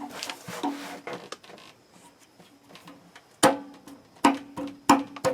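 Scraping, then four sharp metallic knocks that each ring briefly, from a water heater thermostat being forced up behind its spring clips on an electric water heater.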